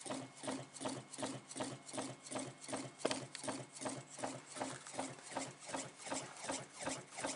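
Homemade solenoid engine with Bedini-style trigger electronics running, its piston stroking back and forth in the coils and knocking in an even rhythm of about three strokes a second, over a faint steady low hum.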